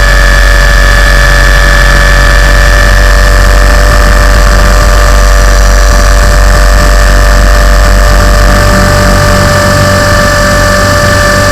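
Tarot 450 flybarless electric RC helicopter heard from its own onboard camera: a steady, very loud motor and gear whine over the low rush of the rotor wash, easing slightly near the end.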